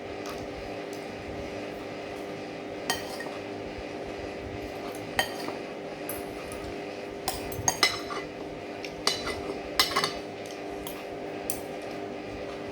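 Cutlery clinking against a plate now and then: single sharp clinks, then a quick cluster of them later on, over a steady low hum.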